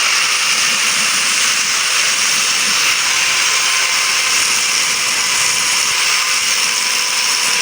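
Electric arc welding, a steady, loud hiss with no change in pitch, as weld is built up on the worn crown pinion teeth.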